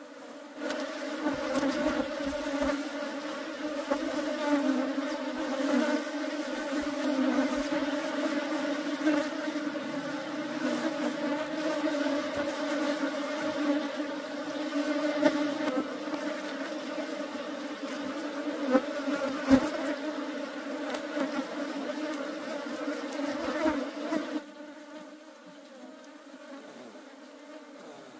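Many honeybees buzzing close by: a steady, dense drone that swells about a second in and falls away sharply near the end, with a few brief knocks among it.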